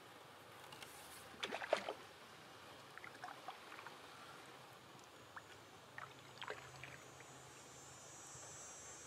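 Canoe paddling: a quick cluster of knocks and splashes from the paddle and hull about one and a half seconds in, then scattered quieter drips and splashes. A faint steady high insect trill comes in past the middle.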